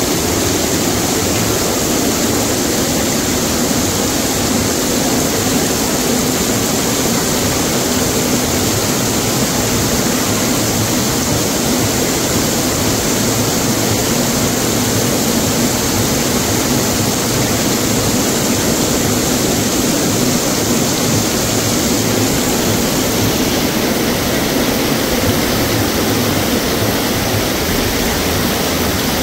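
Heavy rain pouring steadily onto a flooded cobblestone street: a loud, even hiss.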